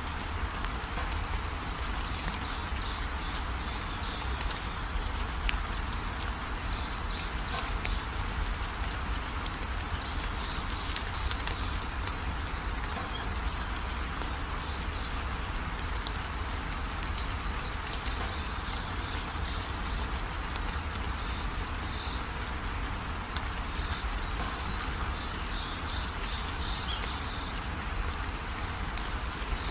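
Steady hiss of diced onions, peppers and tomatoes frying in oil in a steel pot. Over it, a small bird chirps in short high twittering bursts every few seconds.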